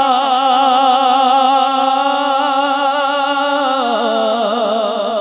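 A man's voice singing a naat, unaccompanied. He holds one long wavering note, then drops lower just before four seconds in and carries on with a wider waver.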